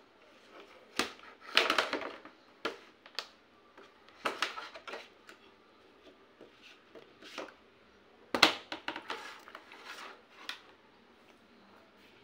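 Plastic clacks and scraping from a toddler handling a plastic drawing board with its pen and stamp on a plastic seat tray: irregular knocks and short scratchy bursts, the sharpest knock about eight seconds in.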